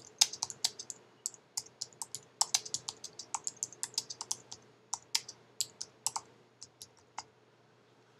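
Typing on a computer keyboard: a run of quick, irregular key clicks that thins out and stops about seven seconds in.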